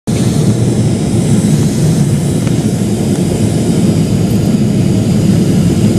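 Steady, loud low roar of a Boeing 777-300ER on its landing approach, heard from inside the cabin: its GE90-115B jet engines and the rush of air over the airframe, heaviest in the low range with a fainter hiss above.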